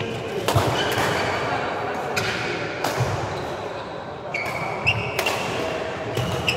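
Badminton doubles rally: rackets striking the shuttlecock in sharp knocks several times, with short squeaks of court shoes on the hall floor between the shots.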